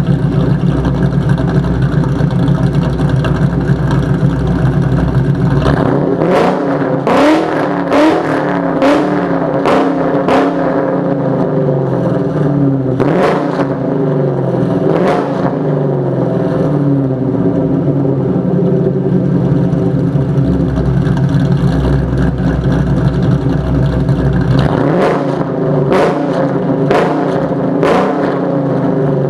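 Modified 1999 Ford Mustang GT's 4.6-litre V8, with long-tube headers and an aftermarket cat-back exhaust, idling and then revved in quick throttle blips: about eight blips starting some six seconds in, a steady idle, then four more near the end.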